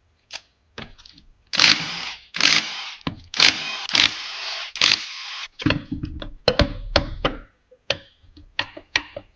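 A power tool runs in several short bursts as it loosens the bolts of the VW 020 transmission's end cover. It is followed by a run of sharp metal clinks and knocks from tools and parts being handled.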